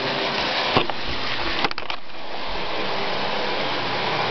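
Model Canadian Pacific F9A diesel locomotive running on a model railway layout: a steady motor and wheel noise, with a sharp click a little under a second in and a quick run of clicks near two seconds.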